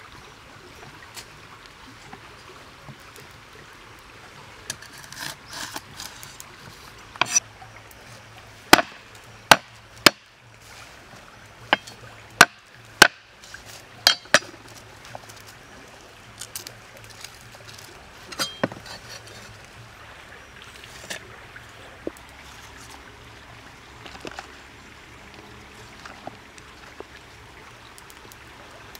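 Cleaver knocking on a wooden chopping board while garlic cloves are prepared: about a dozen sharp wooden knocks, most of them bunched a third of the way through, with lighter handling clicks scattered after.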